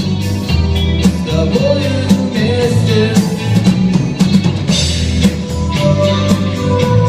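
Rock band music with no words sung: drum kit keeping a steady beat under bass and guitar, with wavering held notes above.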